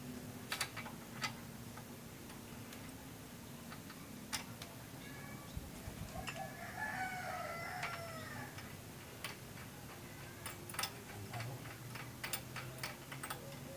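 A rooster crows once, a call of about two seconds starting about six seconds in. Scattered light metallic clicks and taps run throughout as motorcycle rear-wheel parts are handled, and a few of them are as loud as the crow.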